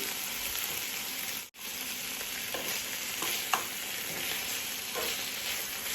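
Chicken pieces sizzling steadily in hot oil in a pan as they brown, with a spatula stirring and scraping, giving a few short clicks. The sound cuts out for a moment about a second and a half in.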